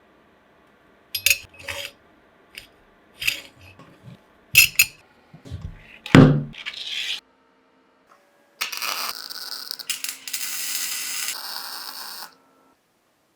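Metal parts and tools being handled in a workshop: a string of clinks and scrapes with one heavier knock, then a steady hissing, whirring noise for about four seconds that cuts off suddenly.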